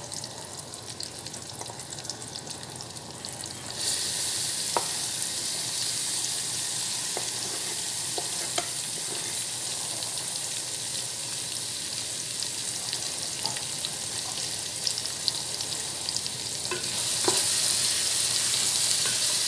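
Chopped garlic, onion and chili pepper sizzling in hot oil with fried sausage in a pressure cooker pot. The sizzle grows louder about four seconds in and again near the end as the pan is stirred, with a few clicks of a utensil against the pot.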